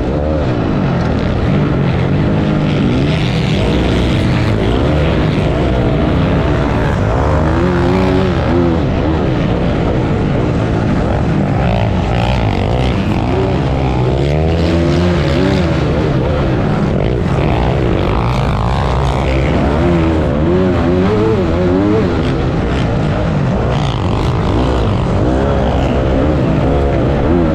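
Motocross bike engine heard up close from the bike itself, revving hard and falling back again and again as the rider accelerates, shifts and brakes through the course.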